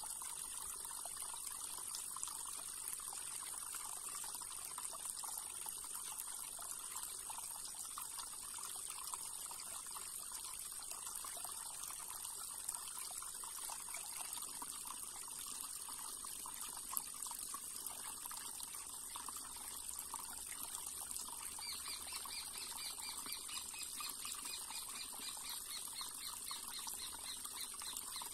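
Shallow river water trickling over stones, with a steady high insect buzz. About three-quarters of the way through, a rapid pulsing insect chirp joins in.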